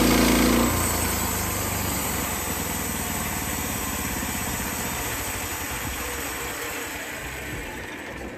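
Portable band sawmill's gas engine throttled down from high revs to a low idle less than a second in, then running on, slowly getting quieter.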